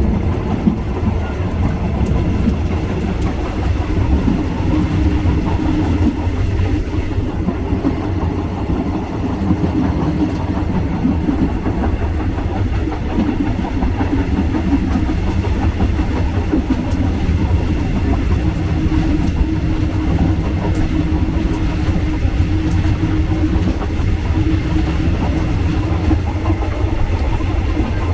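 Train running along the track: a steady, heavy low rumble of wheels and carriages with no let-up.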